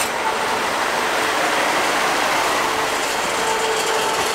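Passenger coaches of a train rolling past at close range: steady wheel-on-rail noise, with a faint whine joining in during the second half.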